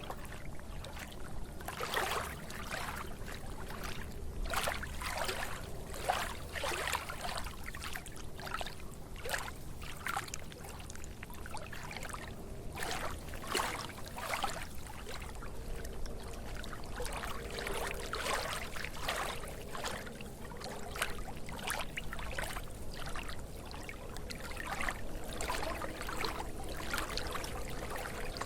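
Running water trickling and splashing, with frequent irregular small splashes over a steady flow.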